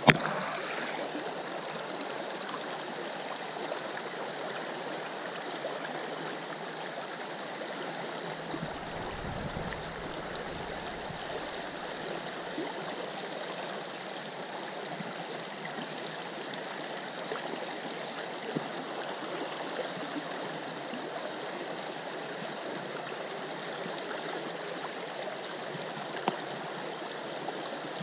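Creek water running steadily, with a brief sharp knock right at the start.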